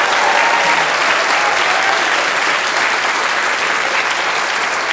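Large audience applauding, the clapping easing off slightly in the second half.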